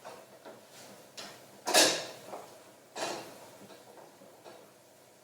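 Kitchen clatter: a few sharp knocks of cookware or utensils being handled, the loudest a little under two seconds in and another about a second later.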